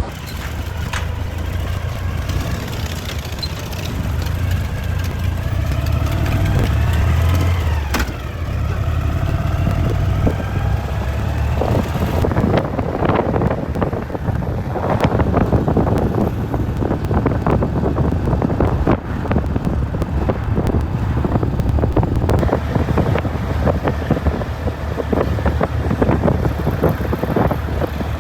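Motorcycle engine running under way, its pitch rising as it accelerates in the first several seconds. From about twelve seconds in, wind buffeting on the microphone dominates.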